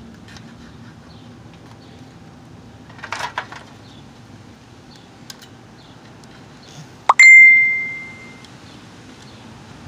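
A broken CD-player mechanism knocks hard against concrete pavement, and a metal part of it gives a clear ring that dies away over about a second. A brief rattle of it a few seconds earlier.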